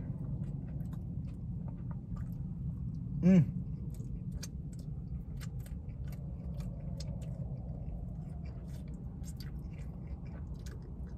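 A person chewing the last bite of a burger with closed mouth, giving many small wet mouth clicks. There is a brief hummed "mm" about three seconds in, over a steady low hum.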